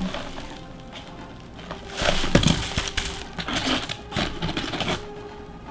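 Packaging being handled: a few scattered knocks, taps and scrapes of a statue's box and its contents, with faint background music underneath.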